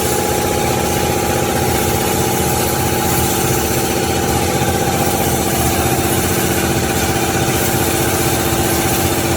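Band saw cutting machine running steadily: a continuous mechanical hum with several fixed tones over a fast, even rattle.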